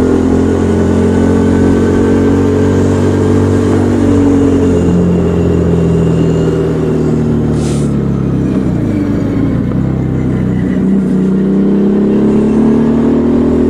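Motorcycle engine running under way, heard from the rider's position; its pitch holds fairly steady, drops sharply about eight seconds in as the bike slows, then climbs again as it speeds back up.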